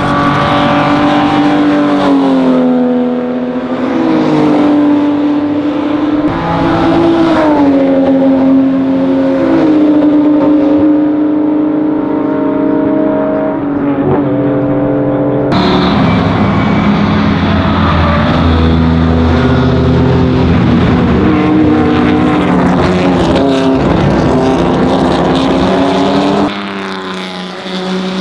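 Ferrari 250 GT SWB Berlinetta Competizione's 3-litre V12 at racing speed, its engine note dropping in pitch in steps a few times. About halfway through, an abrupt change to a rougher, louder run with a heavy low rumble, and another abrupt change near the end.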